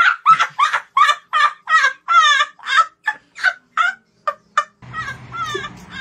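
A child laughing hard: a run of short, high-pitched cackles, about three a second, that stops about five seconds in.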